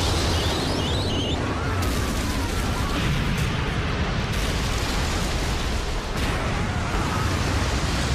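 Explosion sound effects from an anime battle: one long, steady blast with a heavy low rumble and no break, as a ship is blown apart and its wreckage scatters.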